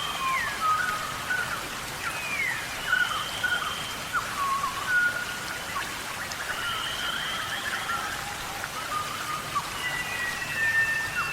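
Several wild birds calling and singing in short whistled notes and chirps, with one long high whistle repeating every three to four seconds, over a steady hiss.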